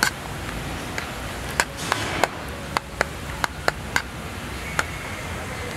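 Fork clicking and scraping against a plate while palabok noodles are mixed: a string of sharp, irregular clicks with a short scrape about two seconds in.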